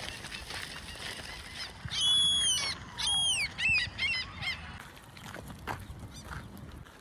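A bird calling: a run of high, squealing calls starting about two seconds in, the first held and then falling, followed by three or four shorter ones.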